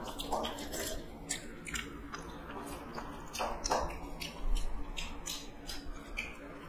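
Eating by hand from steel plates: chewing and lip smacking with many short scattered clicks.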